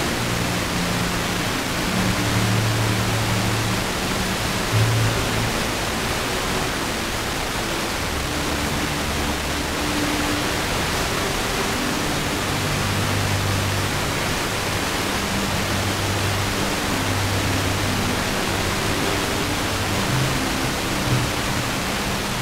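Weak, distant FM broadcast on 103.7 MHz, the ABC Classic FM signal from Swan Hill carried in by aurora propagation: steady heavy hiss with faint classical music of low held notes coming through underneath.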